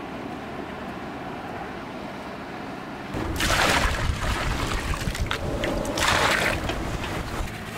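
Salt-spring brine poured from a metal bucket onto the sand filter in a wooden tub, a splashing rush of water that starts about three seconds in, with a second pour a couple of seconds later. Low steady outdoor noise before the pouring.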